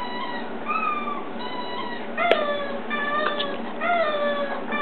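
Border collie whining at the television: a string of about six drawn-out, high-pitched whines, each about half a second long. A sharp click comes a little over two seconds in.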